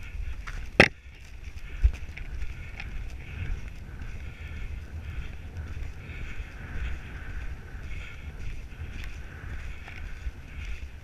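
Wind buffeting the microphone of a camera carried on a horse ridden at speed, a low rumbling with irregular low thumps. A sharp knock comes about a second in.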